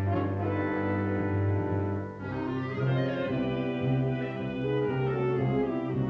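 Orchestral film score with sustained chords that shift to a new chord about two seconds in.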